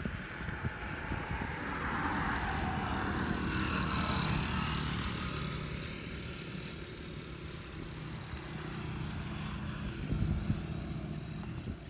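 A motor engine running steadily, with a swell that grows louder over the first few seconds and fades again, like a vehicle passing. A few short knocks about ten seconds in.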